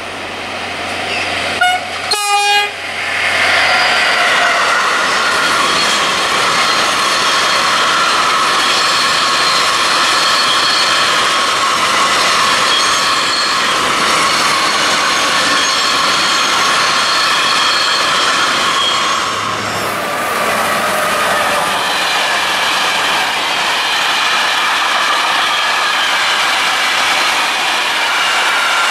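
Freight train of hopper wagons passing close by. About two seconds in the locomotive gives a short horn blast, then the wagons run past with a steady loud rumble and clatter on the rails, with several steady high wheel-squeal tones over it.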